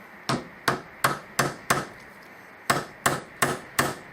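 A hammer driving a piece of yucca wood tightly into its wooden seat. It strikes about three times a second: five blows, a pause of about a second, then another run of blows.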